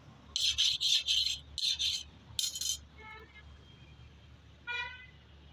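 Harsh metal-on-metal scraping as a hot forged steel blade is worked on a block anvil: five short strokes in quick succession, then two brief high-pitched squeaks.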